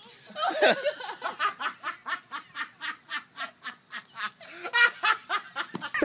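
A person laughing hard in a long unbroken run of quick 'ha-ha' bursts, about five a second, loudest near the start and again about five seconds in.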